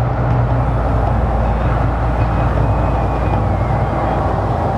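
The Mirage volcano show's eruption: a loud, steady low rumble with a rushing hiss over it.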